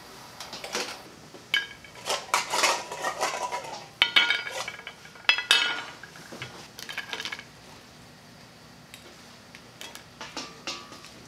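Kitchen clatter: sharp, ringing clinks and knocks of shellfish and a steel bowl against a ceramic plate, busiest in the first half and thinning to a few light clicks near the end.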